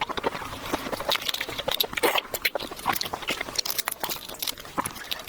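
Close-miked eating sounds: a person chewing, with dense, irregular wet clicks and crunches.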